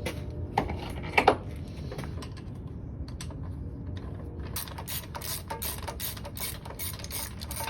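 A 1/4-inch ratchet clicking as it backs out a 10 mm starter mounting bolt on a Kohler Command V-twin engine. There are a few separate clicks in the first second and a half, then a fast run of clicks, about five a second, for the last three seconds.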